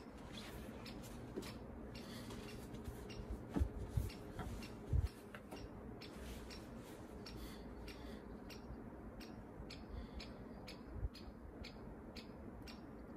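Steady, regular ticking clicks, about two a second, with a few low thumps about four to five seconds in.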